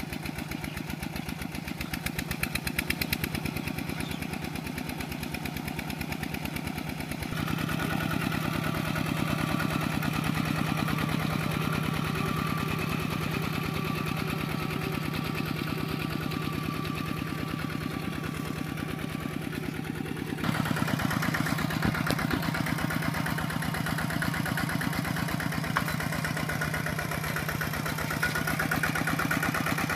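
Kubota RT120 walking tractor's single-cylinder diesel engine running steadily with a rapid, even firing beat as it works the tractor through mud. Its tone and loudness shift abruptly twice, about seven and twenty seconds in.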